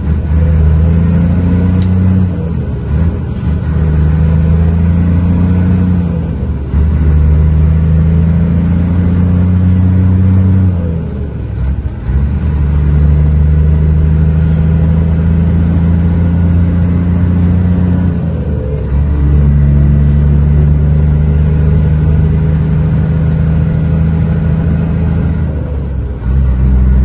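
Scania 124 truck's straight-six diesel engine pulling steadily, heard from inside the cab. About five times the engine note briefly drops away and returns at a new pitch, as at gear changes.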